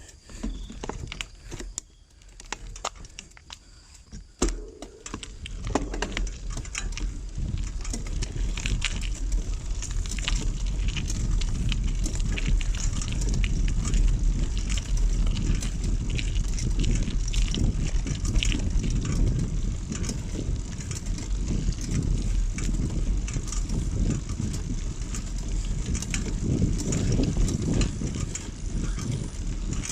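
Bicycle rolling downhill on a road: wind rumbling on the microphone and tyres crackling over the surface. The sound builds up about five seconds in, after a few clicks and knocks.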